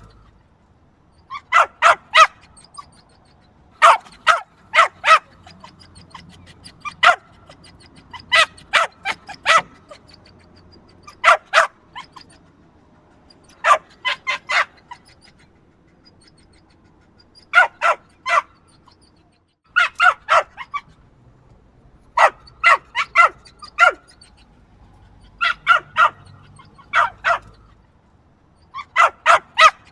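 A small yappy dog barking: short, sharp, high barks in quick clusters of two to five, with pauses of a second or two between clusters.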